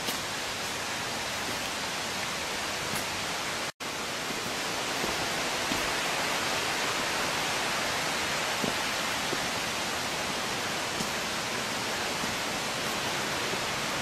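Steady rushing of a waterfall and its rocky stream, an even hiss with no pauses. It cuts out for an instant about four seconds in, then comes back slightly louder and brighter.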